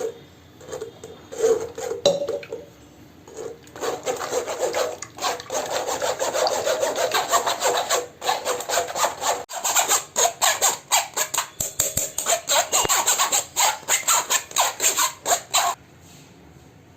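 Ground cucumber pulp being scraped and pressed through a strainer to push the juice out, in quick rhythmic strokes of about three a second. The strokes stop shortly before the end.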